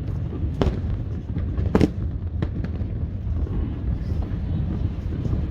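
Aerial fireworks shells bursting: three sharp bangs in the first two and a half seconds, the loudest nearly two seconds in, then fainter crackling over a steady low rumble.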